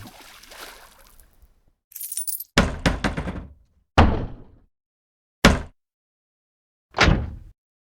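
A run of separate short impact sound effects, about five hits or crashes with gaps of a second or more between them, each dying away within half a second or so.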